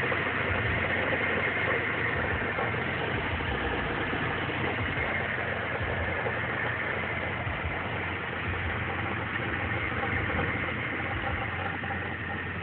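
1990 Ford Mustang LX's 5.0-litre V8 idling steadily, heard from over the open engine bay.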